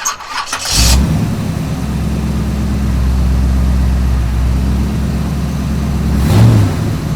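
Chevrolet 454 big-block V8 in a 1973 Oldsmobile Delta 88 catching within the first second, then running at a steady idle. Near the end there is a short blip of the throttle.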